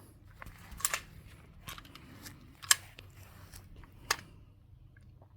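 PSA ARV9 9mm AR-style carbine firing single shots, sharp reports spaced about one and a half seconds apart, the loudest about halfway through.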